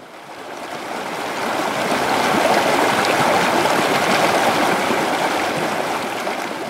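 Rushing water, a steady stream-like sound that swells up over the first two seconds and eases off near the end.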